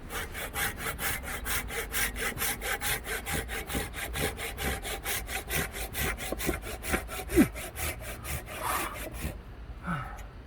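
Hand saw cutting through a log of dry dead wood for firewood, in fast, even strokes of about five a second that stop shortly before the end. One louder knock sounds about seven seconds in.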